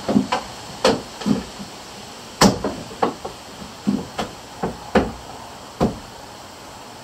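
Hammering on wood: about a dozen sharp, uneven knocks over some six seconds, some in quick pairs, then they stop.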